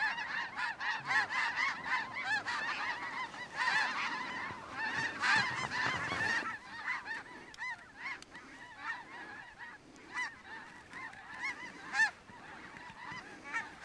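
A flock of snow geese calling, many overlapping high yelping honks at once. The calls are densest and loudest for about the first six seconds, then thin out to scattered honks.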